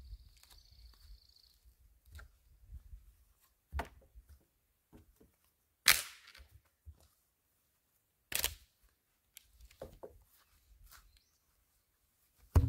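Wooden fence rails knocking against each other and the posts as they are pulled loose and dropped by hand: a few sharp, separate wooden knocks, the loudest about six seconds in and another about two and a half seconds later.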